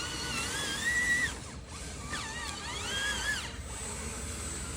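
Small electric motors of an RC model excavator whining, the pitch rising and falling with the control inputs, in two stretches with a short break about a second and a half in.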